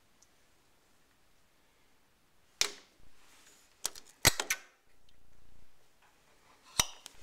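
Sharp clicks and knocks of hands working the handlebar controls and fittings of a 1970 Moto Guzzi Ambassador motorcycle: scattered single strikes, the loudest a little past four seconds in and another near the end, with a short low buzz about five seconds in.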